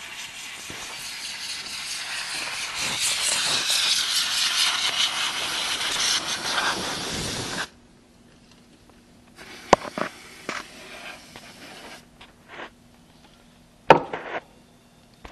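Rubbing and scraping as a wooden strip is worked along the Kilgen organ console's key contacts to clean them: a hissing scrape that grows louder, then cuts off suddenly about halfway through. A few sharp clicks follow near the end.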